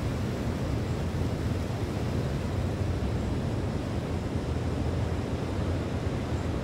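Steady low rumble of wind and surf at the seashore, with wind buffeting the phone's microphone.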